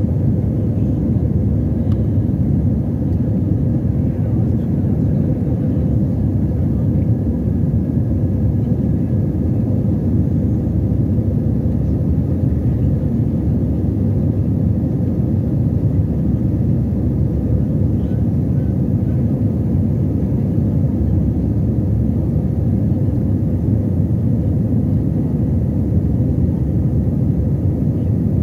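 Steady low rumble of a jet airliner's engines and rushing air, heard from inside the cabin during the climb after takeoff, with a faint steady hum over it.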